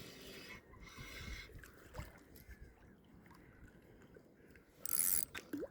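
Faint sounds of a spinning rod and reel during a lure cast: line hissing out at the start, a click about two seconds in, and a short rasp near the end as the reel begins to turn.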